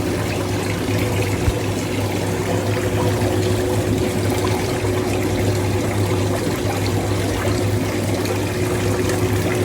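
Ozone spa bath bubbling and churning the water steadily, over a constant low hum from the bath's pump.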